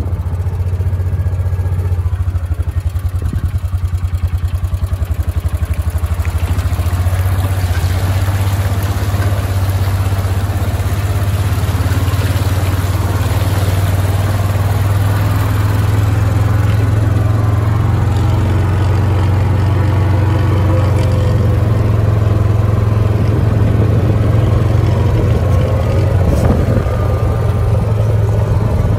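Small off-road vehicle's engine running steadily as it drives over wet grass, its knobby tyres splashing through standing water around the middle.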